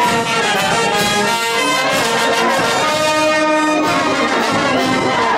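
Brass band music: trumpets and trombones playing a run of long held notes.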